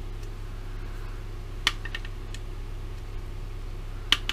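A few sharp, small clicks from a hard plastic tool and the instrument pod being handled while the gauge needles are adjusted: a quick cluster about halfway through and one louder click near the end, over a steady low background hum.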